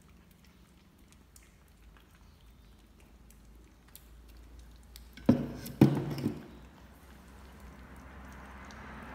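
Kittens lapping soup from bowls, faint small wet ticks, then two heavy knocks about five seconds in as a glass blender jug is set down on the wooden table. A soft rushing noise builds near the end.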